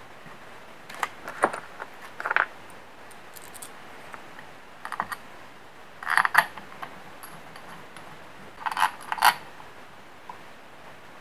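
Socket-head bolts with copper washers clinking against a machined metal cylinder head as they are set into their holes by hand: short clusters of light metallic clinks every second or two, the loudest about six and nine seconds in.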